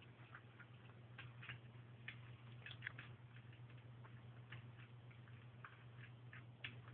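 Bombay kittens eating from food bowls: faint, irregular little clicks and smacks of chewing, a few each second, over a steady low hum.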